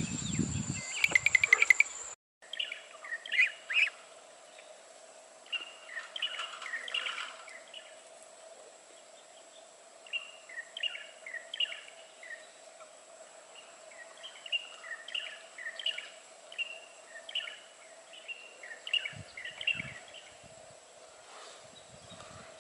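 Small birds chirping and twittering in short repeated phrases, with a steady faint hum underneath. A brief, louder burst of rapid clatter comes about a second in, before the birdsong starts.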